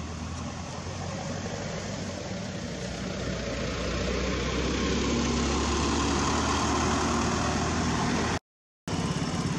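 An engine running steadily with a low hum, growing louder over the first few seconds. It cuts out completely for about half a second near the end, then comes back.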